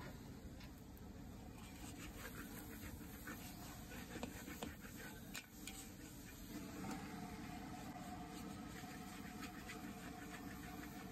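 Metal spatula scraping and clinking against a steel wok as noodles are stir-fried, over a steady low rumble. The clicks come mostly in the first half.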